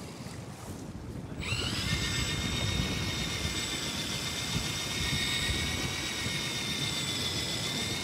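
Electric fishing reel motor whining as it winds in line. It spins up with a short rising sweep about a second and a half in, then runs at a steady pitch over a low rumble of wind and boat noise.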